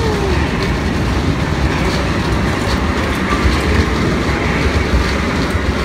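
Kiddie motorcycle carousel ride turning: a loud, steady rumble with a light clatter from the rolling steel-plated platform.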